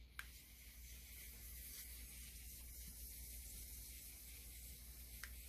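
A long, faint inhale through a live resin vape cartridge pen: a steady soft hiss of air drawn through the cartridge, with a small click just after the start and another near the end.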